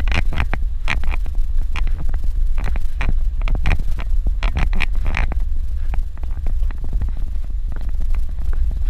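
Suzuki Jimny driving on a dirt road: a steady low rumble of engine and road, with frequent sharp clicks and knocks of gravel and rattles, thick through the first half and sparser later.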